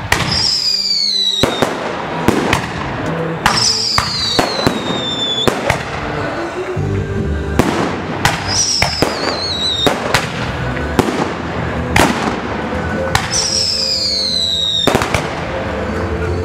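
Aerial fireworks launching and bursting, with many sharp bangs and crackles in quick succession and a few falling whistling tones. Music plays underneath.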